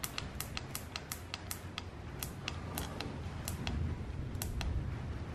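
Buttons on a Trail Tech Vapor digital speedometer clicking under repeated thumb presses, about three or four clicks a second, stepping the tire-size setting up one number at a time.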